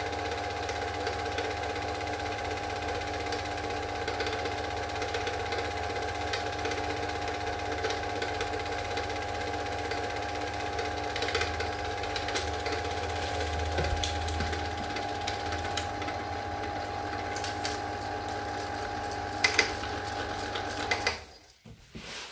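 Super 8 film projector running, a steady mechanical whirr and clatter with a low hum, with a few sharp clicks in the second half. It stops abruptly shortly before the end as the reel runs out.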